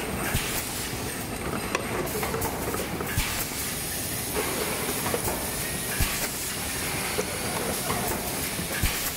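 Fully automatic PET blow moulding machine running: a steady mechanical noise with a high compressed-air hiss, which gets stronger about three seconds in, and sharp clicks and knocks every second or few seconds as the machine cycles.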